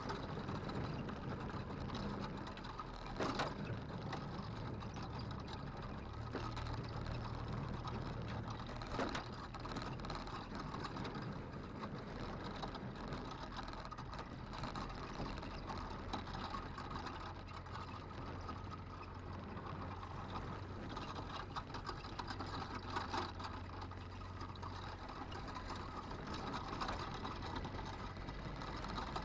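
Vehicle engine running steadily while driving, with rattling throughout and two sharp knocks about six seconds apart.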